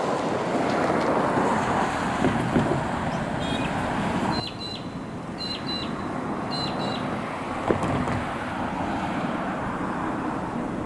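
Road traffic going past, a steady rushing wash with wind on the microphone, dropping suddenly about four seconds in. A few short high-pitched chirps sound through the middle.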